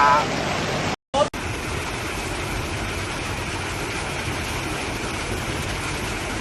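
Rushing floodwater: a steady, even roar that begins after a brief cut about a second in.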